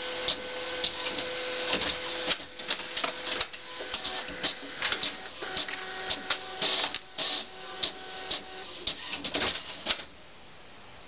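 Desktop printer printing: a quick, uneven run of clicks and clacks from the paper feed and print head over steady motor tones. It stops abruptly about ten seconds in.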